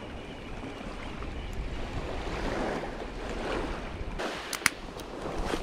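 Small waves washing on a sandy beach, with wind on the microphone, the wash swelling and easing. A few sharp clicks come near the end.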